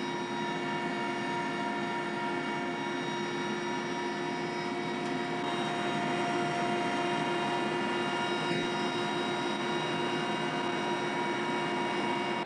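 Helicopter in flight heard from inside the cabin: a steady turbine whine of several tones over dense engine and rotor noise.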